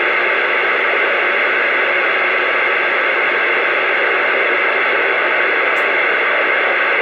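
CB radio receiver hissing steadily with static on an open channel, with no station transmitting.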